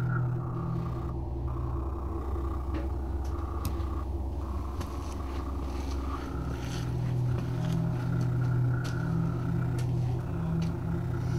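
A steady, low droning hum made of several held tones, which thins out for a few seconds near the start and swells back about six seconds in. A few faint clicks sound over it.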